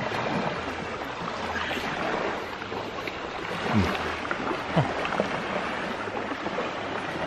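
Steady rushing noise, with two brief low muffled hums about four and five seconds in.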